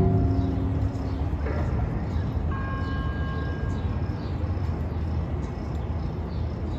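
Outdoor city ambience: a steady low rumble of distant traffic, with small birds chirping faintly. A steady high tone is held for about a second and a half, starting about two and a half seconds in.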